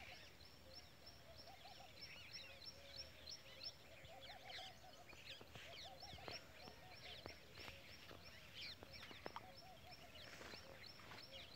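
Faint outdoor birdsong from several birds: scattered chirps and twitters, groups of low arched notes, and a fast, evenly repeated high ticking.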